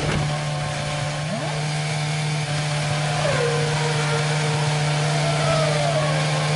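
Onboard sound of a 2008 Toyota Formula One car's V8 engine running at a steady low pitch as the car rolls on after striking the wall. Another car's engine passes and falls in pitch about three seconds in.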